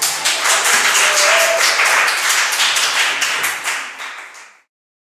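People clapping in applause, a steady patter of hand claps that fades slightly and cuts off suddenly about four and a half seconds in.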